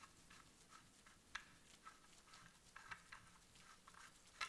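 Faint, scattered small clicks and scrapes of metal on metal as the threaded rear end cap of a Dineley machine carbine is unscrewed by hand, with a slightly louder click near the end.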